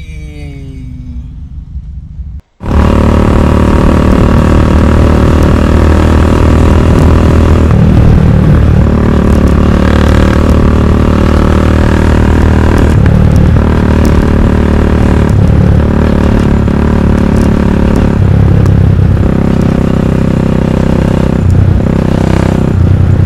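Custom motorcycle's engine running at road speed, heard from on board. The note steps up and down several times as the rider works the throttle. The loud engine sound cuts in suddenly about two and a half seconds in, after a quieter opening.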